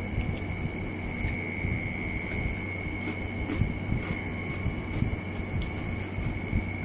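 Faint clicks and mouth sounds of eating corn on the cob coated in crushed Takis, over a steady low hum with a high, even whine.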